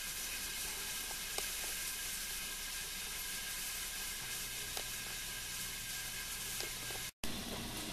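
Ground beef frying in a pot on the stove: a steady sizzling hiss with a few faint pops.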